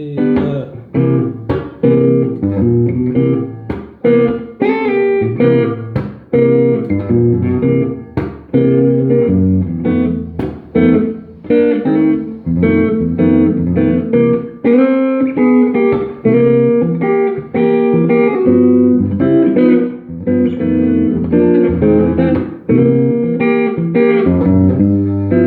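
Guitar playing a twelve-bar blues, a string of picked notes and chords with blues licks; a chord is left ringing at the end.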